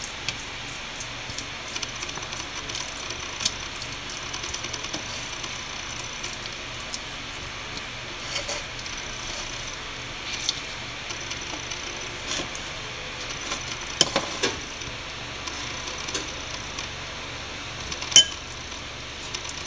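Scattered light clinks and taps of kitchen utensils against dishes, over a steady faint background hiss, while marinade paste is spread onto salmon fillets. The sharpest clicks come about fourteen seconds in and near the end.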